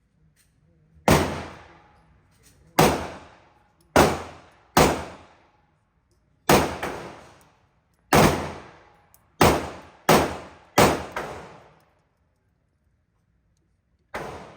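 About ten gunshots fired one at a time at uneven intervals, each followed by a short ringing echo, with a pause of a few seconds before the last shot near the end.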